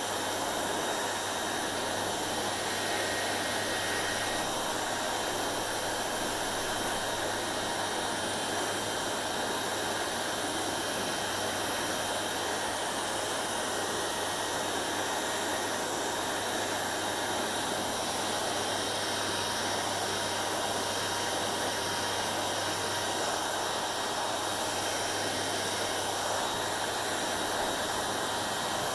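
Hair dryer running steadily: a constant rush of blown air over a low motor hum, with a faint thin whine.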